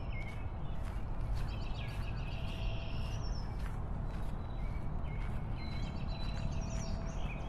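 Birds chirping in short high calls, in a cluster about a second and a half in and again near the end, over a steady low rumble of wind and surf. A few faint clicks are scattered through it.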